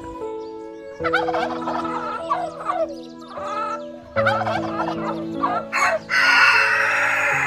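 Poultry calling: rapid, warbling calls starting about a second in, pausing briefly, then resuming, with a harsh, noisy call near the end. Background music with held notes plays underneath.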